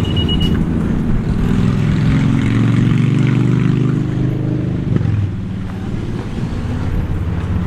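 An engine running steadily, with a brief high beep at the very start. Its low drone eases slightly about five seconds in.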